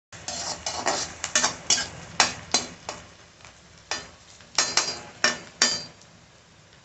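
Perforated metal spatula scraping and stirring chopped onions and peanuts frying in a metal kadai: a quick run of scrapes, a pause of about a second, then a second run of scrapes.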